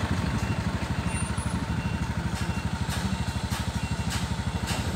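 Motorcycle engine running steadily while riding, its exhaust pulsing in an even, rapid beat.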